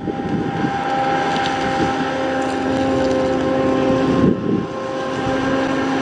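Large farm machinery running steadily in the field during corn harvest: a diesel drone with a steady whine on top, dipping briefly about four seconds in.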